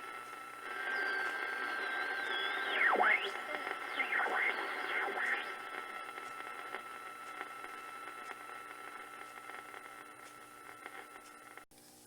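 National SW-54 shortwave receiver between stations: static hiss with a steady whistle, and several heterodyne whistles that sweep down and back up in pitch as the tuning passes carriers. The sound cuts off abruptly near the end.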